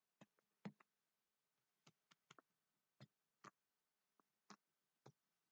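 Faint, scattered taps and clicks as the base of a plastic drink bottle is pressed down onto painted paper and lifted again, about ten in all at uneven intervals.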